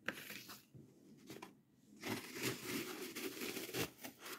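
Dry green floral foam crunching and crumbling as a block is pressed by hand into a plastic pumpkin: a short handling knock at the start, then steady scratchy crunching from about two seconds in. The foam has not been watered, so it crumbles dry.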